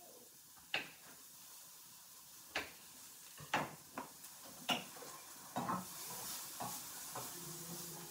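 Irregular knocks and clicks of kitchen items being handled and set down on a countertop and wooden cutting board, about nine separate taps with a faint rustling hiss in the second half.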